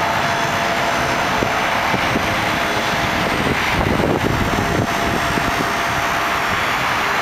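Maxon GPTLR-25 liftgate's electric hydraulic pump motor running steadily as it raises the steel platform.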